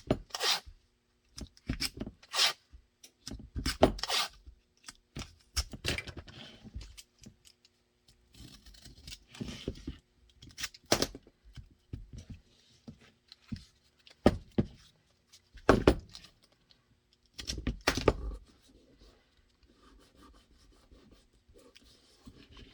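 Bench handling noises: a string of sharp knocks and clicks with bouts of scraping, as holster-making pieces and tools are picked up, shifted and set down.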